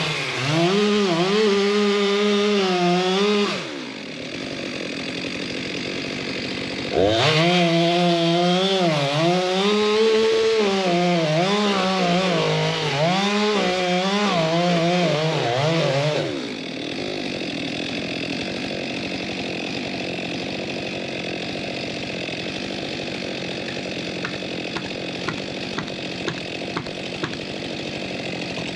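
Stihl MS 462 two-stroke chainsaw cutting a log. It runs at full throttle for a few seconds and drops to idle, then goes back to full throttle for about nine seconds, the engine pitch sagging and recovering as the chain bites into the wood. After that it settles back to idle, with a few light clicks near the end.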